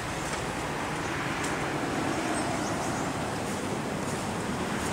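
Steady, even outdoor background noise with no distinct event.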